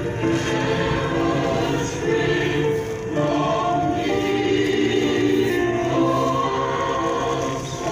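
Choral music: a choir singing long held chords that change every second or two.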